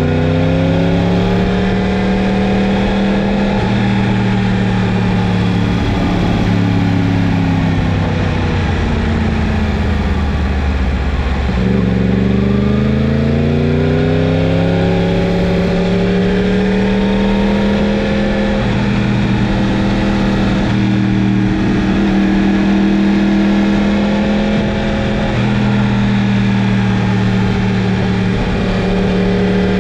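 Yamaha MT-10's 998 cc crossplane inline-four engine under way, its revs climbing and falling in turn. The revs rise over the first few seconds and sag slowly, drop sharply about twelve seconds in and climb again, then hold steady before a short dip and another rise near the end.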